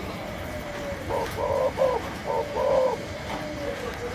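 Spotted dove cooing: a phrase of about five short coos, the last one a little longer, starting about a second in. Fainter coos from other doves are heard around it.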